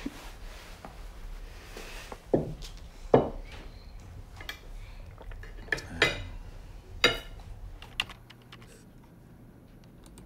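Cutlery clinking and scraping on dinner plates, with about six sharp ringing clinks. Near the end it goes quieter, leaving a few faint clicks.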